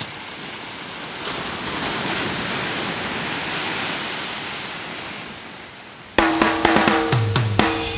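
Ocean surf: a rushing wash that swells and then fades. About six seconds in, background music with drums and bass starts abruptly.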